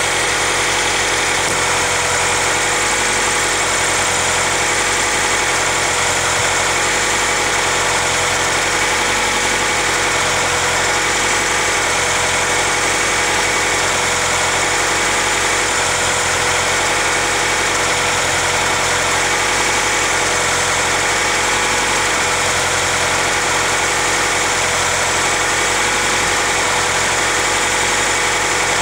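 1996 Acura Integra's four-cylinder engine idling with a whine or whirr from the manual transmission side that comes and goes as the clutch pedal is pumped. The whine is present with the clutch engaged and stops with only slight pedal pressure, which the owner suspects points to a pilot bearing or throw-out bearing. The idle fluctuates slightly, which the owner puts down to the idle air control valve.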